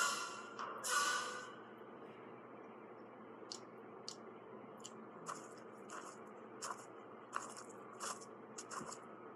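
A short burst of music at the start, then quiet, crisp crunching clicks, one or two a second, through the second half.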